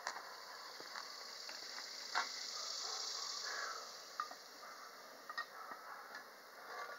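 Metal clinks of a lid lifter catching on the lid and bail of a cast-iron Dutch oven, a few separate clicks with the sharpest about two seconds in, over a steady high hiss that swells and fades in the middle.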